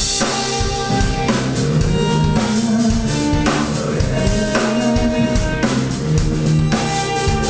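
Live rock band playing an instrumental passage with no vocals: drum kit and electric guitar, with the chord and drum accents changing about once a second.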